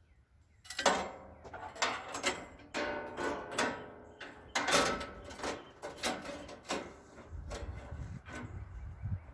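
A string of irregular clanks, knocks and rattles from parts of a Wood-Mizer LT35HD band sawmill being handled during a blade change, followed by a low rumble near the end.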